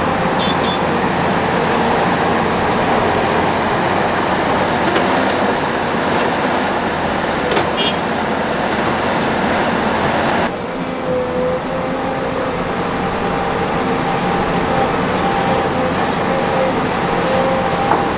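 Heavy diesel earthmoving machinery (hydraulic excavators and dump trucks) running steadily, with a steady whine over the engine noise. About ten seconds in, the sound changes abruptly to a duller, slightly quieter run.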